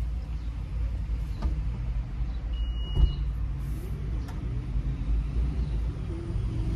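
Steady low rumble inside a parked SUV's cabin, with a short high beep and then a single knock about three seconds in, and a few faint clicks, as the rear liftgate is being opened.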